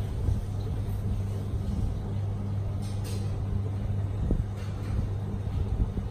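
Steady low hum over a rumbling background noise, with one faint knock about four seconds in.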